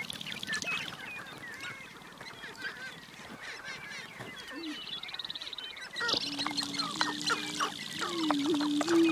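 Sharp-tailed grouse on a lek calling in a rapid, overlapping chatter of short clucks and chirps. About six seconds in, a louder, low, long held tone joins, shifting pitch in small steps, with the clucking going on over it.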